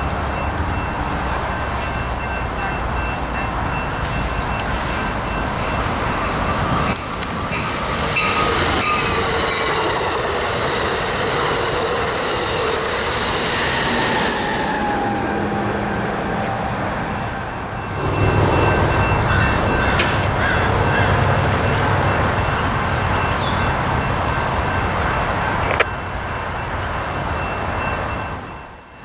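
Bilevel passenger trains, an Amtrak Surfliner and a Coaster commuter train, running past on the line with steady rail and wheel noise. A level-crossing bell rings the whole time. A few falling tones come in partway through.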